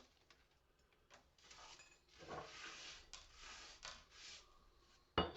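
Faint handling of porcelain lamp-holder pieces on a workbench: light ticks and soft scraping and sliding, then one sharp clink near the end.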